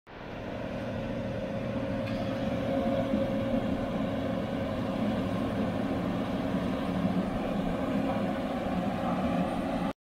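Steady drone of a John Deere combine's diesel engine and threshing machinery harvesting wheat close by, fading in at the start.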